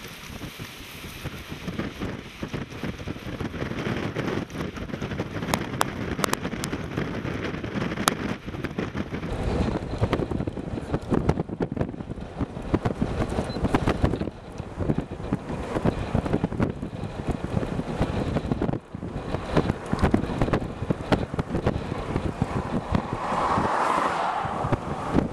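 Strong gusty wind buffeting the microphone, with irregular crackling thumps. Near the end a car drives past close by, its tyre and road noise rising and falling.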